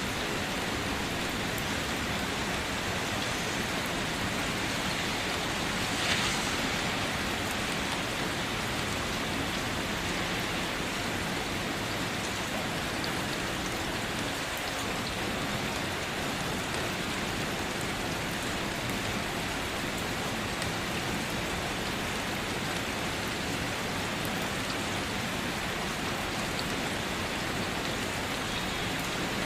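Steady rain falling on a car, heard from inside the car, with a brief louder swell about six seconds in.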